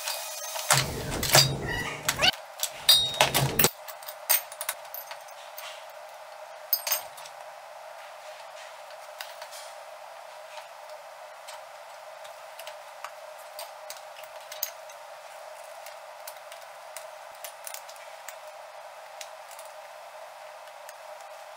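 A homemade steel-chain track with wooden cleats clanking and rattling loudly for about three seconds near the start as it is pulled off its drive sprocket and wheels. After that, faint scattered metal clicks of a spanner working on the track's bolts over a steady hiss.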